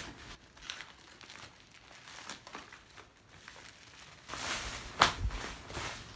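Plastic mailer bag and the packaging inside it crinkling and rustling as they are pulled open by hand, with a louder stretch of crinkling about four seconds in and a single sharp snap about five seconds in.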